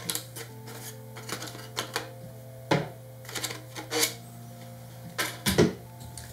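Clicks, taps and knocks of camera rig parts being handled: a Smallrig mini matte box being unclipped from the lens and set down, with plastic and metal parts clattering. There is a scattering of small clicks, a louder knock about halfway through and a cluster of louder knocks near the end.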